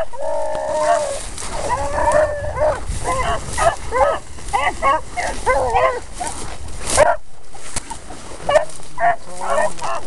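Several beagles baying as they run a scent line through the brush, giving tongue in a run of short, overlapping yelps and chop barks, with a few longer drawn-out bawls near the start.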